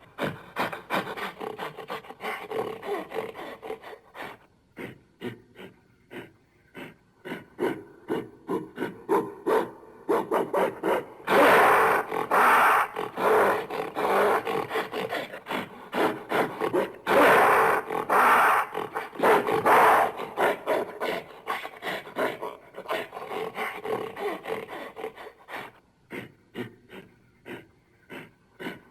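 Gorilla howling: a long series of rapid, pulsed hoots, several a second, that builds to two loud stretches about eleven and seventeen seconds in, then tapers off.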